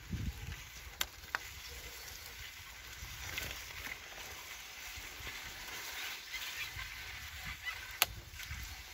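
Bicycle tyres rolling through wet slush and mud, a steady wet crackling hiss. Sharp clicks come twice about a second in and once, louder, near the end.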